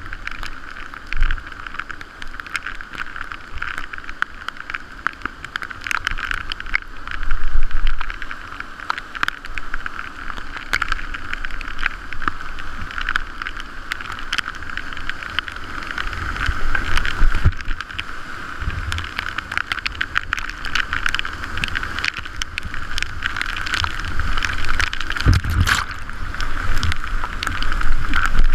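Rushing whitewater of a river rapid around a kayak, with paddle blades splashing and sharp spatters of spray. Heavy low buffeting of water and wind on the microphone comes and goes, loudest about a quarter of the way in and again in the last few seconds.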